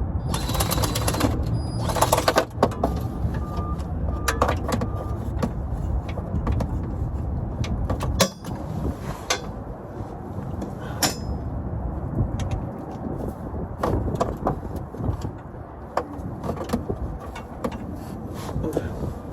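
Wind buffeting the microphone as a steady low rumble, with scattered sharp clicks and knocks of work on a pickup's transmission.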